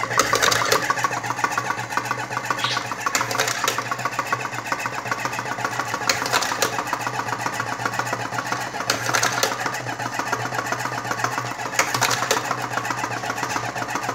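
Electric hopper-fed automatic cigarette-filling machine running, its 12-volt motor driving the filling spoon as tube after tube is filled. A louder mechanical stroke comes about every three seconds, one for each cigarette.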